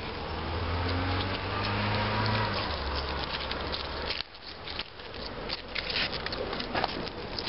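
A steady low rumble and hiss for about four seconds that cuts off suddenly, then rapid crackling and rustling of thistle leaves being handled and trimmed from the stalk with a knife.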